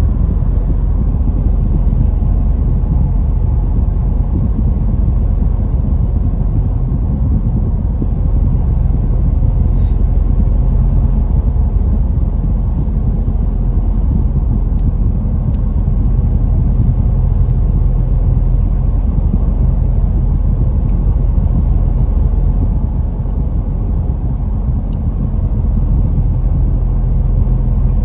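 Car driving at steady speed: a low, steady rumble of engine and tyres on the road, heard from inside the cabin.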